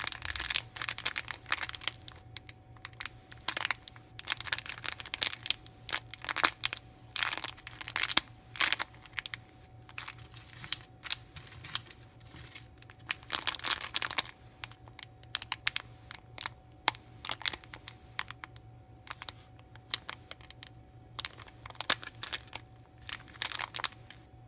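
Thin plastic packaging crinkling and rustling as it is handled and opened, in irregular bursts of crackles with short quiet gaps between them.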